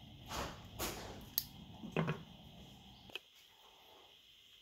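Handling noises from screwing a handheld GPS housing back together with a small screwdriver: two soft rubbing sounds, then a few light clicks and taps of plastic and metal. The steady background hiss drops away about three seconds in.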